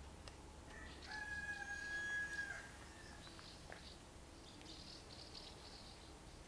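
A rooster crowing once, faint and distant, beginning about a second in and held for about two seconds. Faint high chirps of small birds come and go around it.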